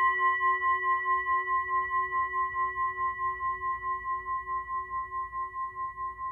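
Singing bowl ringing out and slowly fading, its tone wavering in a steady pulse of about four beats a second.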